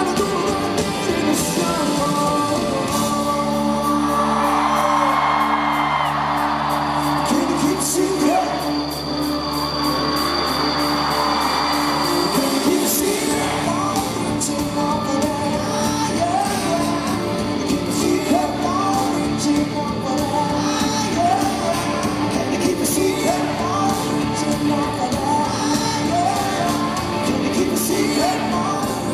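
Live rock band performance with a lead singer, band and guitars playing a song at full volume.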